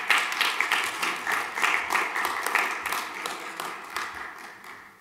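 Audience applauding, many hands clapping together, dying away over the last second or so.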